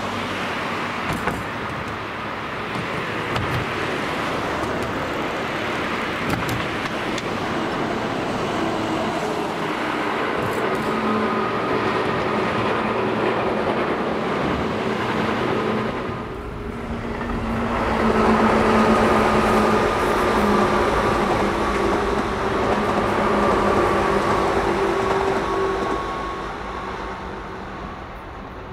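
Tobu Railway 10030 series electric train running on the rails: a steady rumble with a hum of several steady tones that drift slightly lower in pitch, loudest past the middle and fading near the end.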